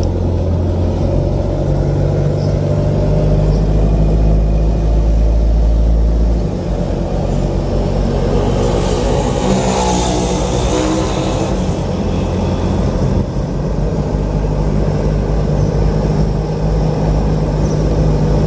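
A car driving, heard from inside the cabin: steady engine and road noise. The low rumble changes about six seconds in, and a rushing hiss swells and fades between about nine and eleven seconds in.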